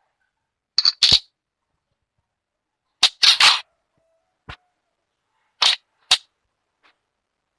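Sharp metal clicks and clacks of AK-74M rifle parts being handled and fitted during field stripping: a pair about a second in, a quick run of three just after three seconds, then a few more single clicks, some faint, with silence between.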